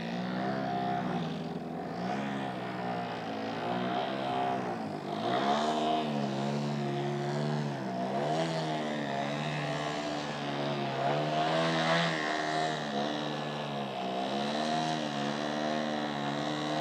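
Radio-controlled aerobatic airplane's engine and propeller, the pitch surging up and down every couple of seconds as the throttle is worked through 3D manoeuvres and a nose-up hover.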